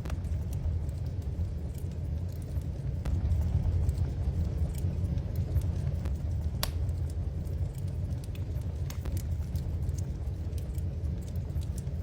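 Wood fire burning in a fireplace: a steady low rumble of flames with scattered sharp crackles and pops, one louder pop a little past halfway.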